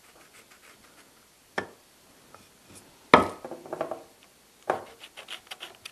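Pieces of wood knocked and set down on a wooden workbench: three sharp knocks, the loudest about three seconds in with a short rattling clatter after it, then a run of light clicks near the end.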